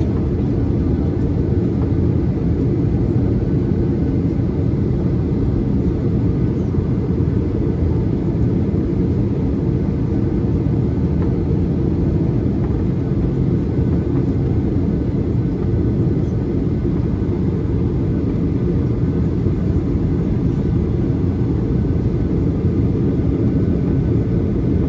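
Steady cabin rumble of a Boeing 737-800 in flight, from its engines and the airflow over the fuselage, with most of the sound low down and no change in level, as the aircraft descends towards landing.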